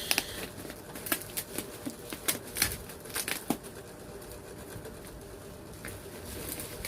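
Parcel packaging being handled and pulled open by hand: irregular sharp crinkles and taps of plastic wrapping and tape, most of them in the first half, then quieter rustling.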